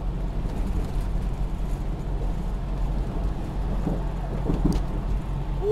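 Steady engine and road rumble heard inside a semi-truck cab cruising at highway speed, around 65 mph.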